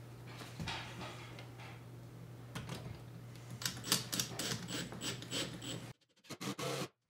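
A Makita cordless impact driver sinks a lag screw through a steel microwave mounting bracket into a wall stud. A fast, clicking rattle of impacts starts a bit over two seconds in and cuts off abruptly about a second before the end.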